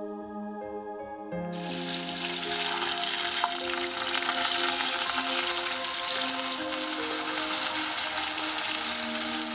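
Ash plantain pieces sizzling as they deep-fry in hot oil, the sizzling starting suddenly about a second and a half in and running on steadily. Background music with sustained tones plays throughout.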